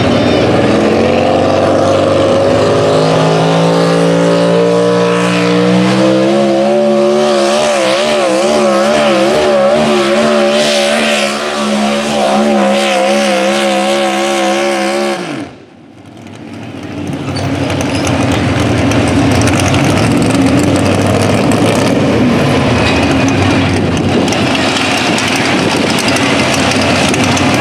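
Supercharged engine of a modified four-wheel-drive pulling truck at full throttle under the load of the sled, climbing in pitch for several seconds and then held at high revs with a wavering pitch. About fifteen seconds in the throttle is cut and the engine note falls away sharply, and a steady rushing noise follows.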